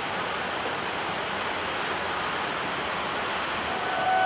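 Steady rushing outdoor noise beside a railway line. At the very end, a level-crossing warning alarm fades in with steady tones.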